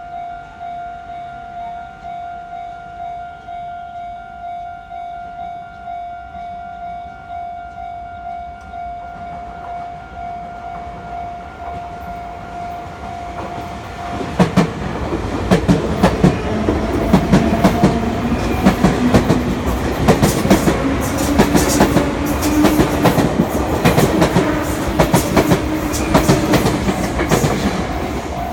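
A Japanese level-crossing alarm rings with a steady, pulsing electronic tone. About halfway through, a Sotetsu Line train arrives and passes over the crossing, much louder, with rapid clicking of wheels over rail joints and a whine rising in pitch; it drowns out the alarm, which is heard again at the very end.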